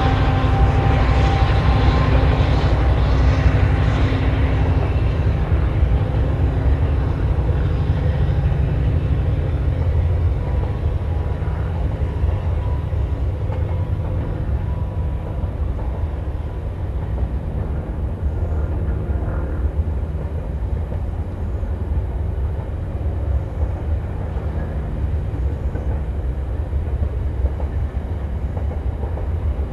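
Freightliner Class 70 diesel locomotive passing under power at the head of a container train, its engine note fading over the first few seconds as it draws away. The container wagons then roll past with a steady low rumble.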